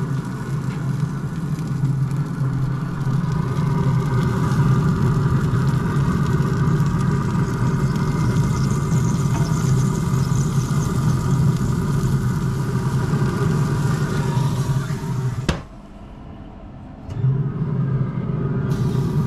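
Pit Boss pellet smoker running with a steady low mechanical hum from its fan. A sharp click about fifteen seconds in is followed by a short quieter stretch, then the hum returns.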